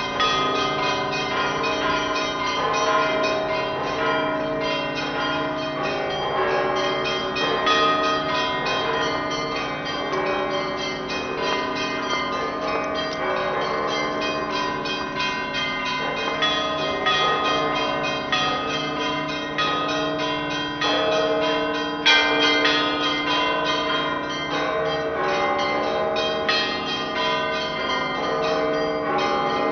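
Bells of Alexander Nevsky Cathedral, an Orthodox church, ringing continuously: many bells of different pitches struck again and again, their tones overlapping and ringing on. One sharper, louder stroke comes about two-thirds of the way through.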